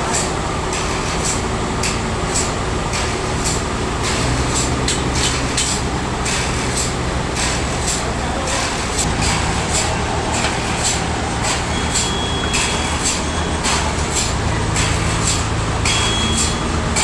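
Industrial sawmill saw cutting through a large log under a steady machine drone that shifts pitch a few times as the load changes, with frequent sharp ticks through the cut.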